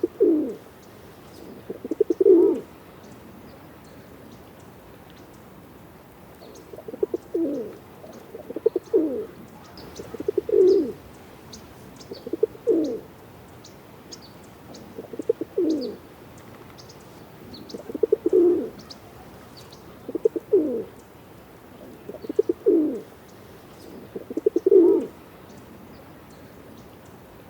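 Pigeon cooing: about a dozen low, throaty coo phrases that fall in pitch, repeating every two to three seconds with short pauses between. Faint high chirps tick along in the background.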